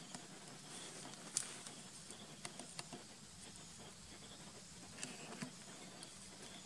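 Faint, scattered light taps and rustles from a baby monkey's hands and feet scrabbling over rocks and dry leaves. The sharpest click comes about a second and a half in, and a few smaller ones follow.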